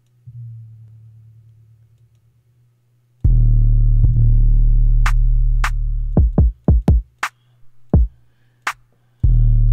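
UK drill-style 808 bass samples triggered in a drum-sampler program. A soft 808 note fades out over about two seconds. Then loud, long booming 808 bass notes play, with a quick run of short hits and a few sharp clicks between them.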